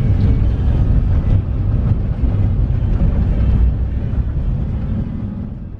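Road and wind noise of a moving vehicle heard from inside: a loud, steady low rumble that eases off a little near the end.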